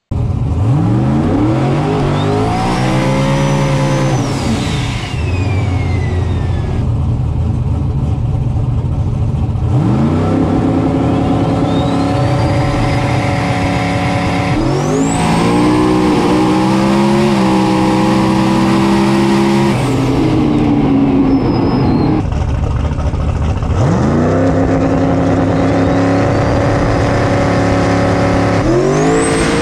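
Turbocharged LS V8 drag car revving up in several pulls, each with a turbo whistle that climbs with the revs and slides down when the throttle closes. Midway the engine is held at high revs for about five seconds in a smoky burnout, then drops back.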